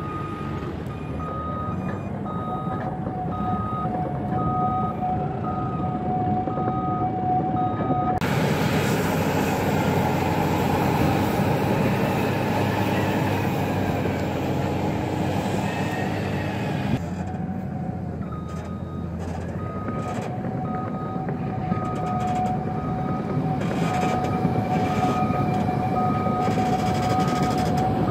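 Heavy diesel machinery running, a Cat 432F backhoe loader and a dump truck, with a reversing alarm beeping steadily. In the middle the beeping drops out under a louder stretch of engine noise for several seconds, then comes back.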